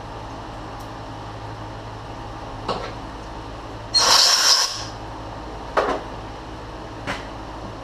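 A compressed-air blow gun gives one hissing blast of about a second, about four seconds in, clearing chips from a freshly tapped hole in a brass impeller hub. A few light knocks come before and after it, over a steady low hum.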